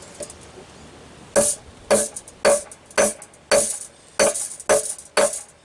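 Eight evenly spaced hammer blows on metal, about two a second, each with a short ring: a connector being crimped onto a ground wire.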